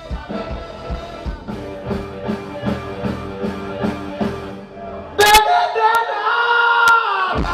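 Music with a steady beat and singing. About five seconds in, a loud held tone with many overtones cuts in over it, sliding down in pitch just before the end.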